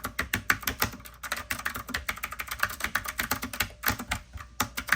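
Typing on an RK104 mechanical keyboard with green linear switches and round typewriter-style keycaps: a fast, irregular run of key clacks.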